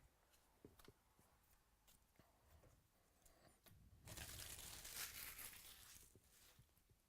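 A trading-card pack's wrapper being torn open with a crinkling rustle about four seconds in, lasting about two seconds, after a few faint clicks of cards being handled.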